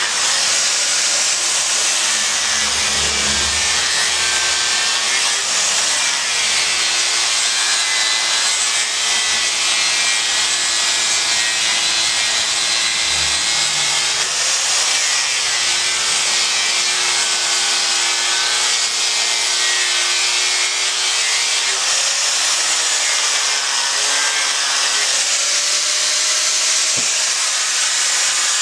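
Electric angle grinder with an abrasive disc grinding a block of monkeypod wood: a steady high hiss of the disc on the wood over the motor's whine, which sags in pitch and recovers every few seconds as the disc is pressed in and eased off.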